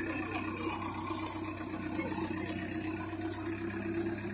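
Diesel engine of a JCB backhoe loader running steadily under working load while its arm lifts an uprooted tree.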